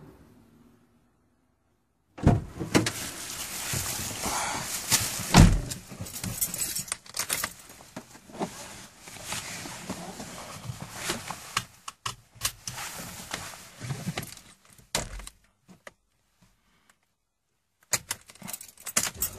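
Irregular jangling, clattering and clicking, like keys and objects being handled, with one loud thump about five seconds in. It stops about two-thirds of the way through and starts again near the end.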